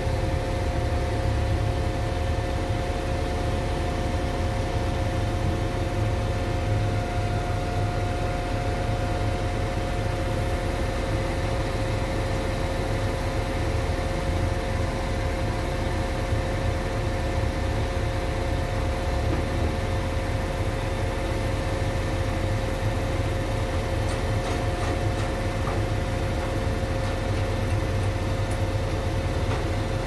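Heavy diesel machinery of a concrete mixer truck and a Schwing truck-mounted concrete pump running steadily while the mixer feeds concrete into the pump's hopper. There is a constant low rumble with a steady higher whine over it.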